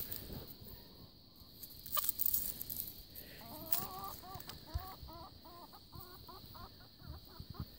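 Chickens clucking: a run of short, pitched clucks, about two a second, starting about three and a half seconds in. There is a brief knock about two seconds in.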